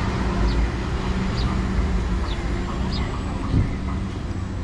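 A vehicle's engine running steadily, with a short high chirp about once a second and a single low thump about three and a half seconds in.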